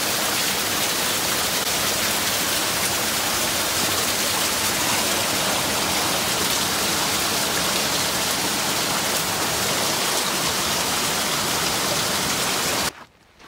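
Small mountain creek rushing and splashing over rocks, a steady wash of water; it cuts off suddenly near the end.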